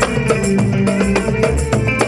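Gambus ensemble playing an instrumental passage: quick, busy drum and percussion strokes under held melody notes.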